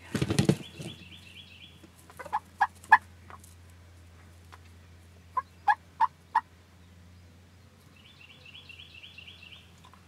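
Wild turkey gobbler gobbling loudly right at the start, then two evenly spaced series of four turkey yelps a few seconds apart. A songbird's quick run of high notes sounds twice in the background.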